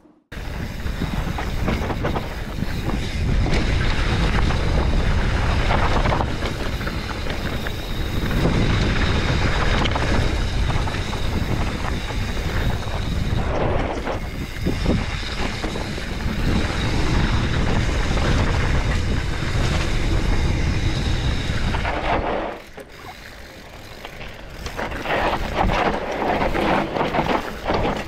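Wind rushing over the microphone of a mountain bike's action camera on a fast descent, mixed with the bike's tyre and rattle noise on a loose dirt trail. The rush drops off for a couple of seconds near the end, then builds again.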